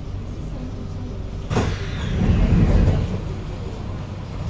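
Inside a Kawasaki-CRRC Sifang C151A train car: a steady low hum, broken about a second and a half in by a sudden loud noise that swells into a heavy low rumble for about a second and a half, then settles back to the hum.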